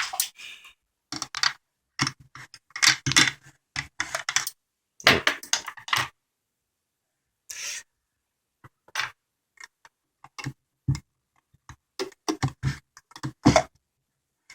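Irregular scraping, rustling and clicking handling noises in short bursts with silent gaps between them.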